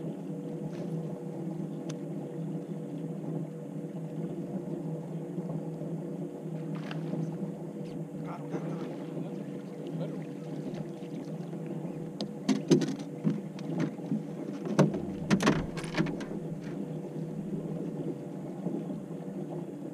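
Electric trolling motor humming steadily at one pitch, with a run of sharp knocks and clatter on the boat in the second half.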